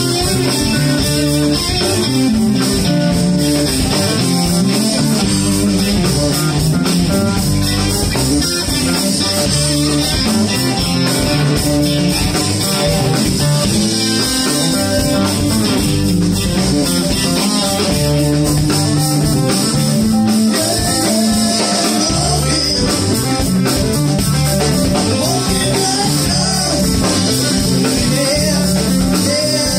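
Live band playing a blues groove on electric guitars, electric bass and drum kit.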